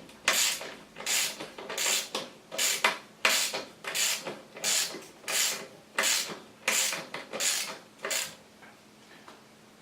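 Socket ratchet with a 14 mm socket swung back and forth, clicking on each return stroke, about a dozen strokes at a steady pace, as it tightens a crank bolt onto a square-taper bottom bracket. The strokes stop about 8 seconds in.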